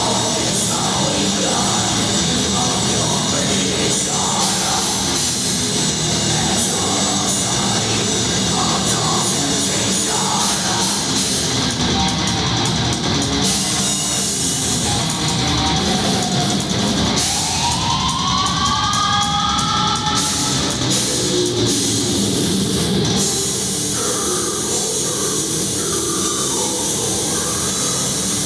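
Blackened death metal band playing live at full volume: distorted electric guitars, pounding drum kit and harsh shouted vocals, heard loud and dense from the middle of the crowd. About two-thirds of the way through, a pitch slides upward out of the mix.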